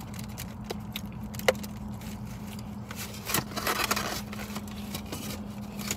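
Scattered small clicks, scrapes and crackles of takeout food containers and wrappers being handled, busiest around the middle, over a steady low hum inside a parked car.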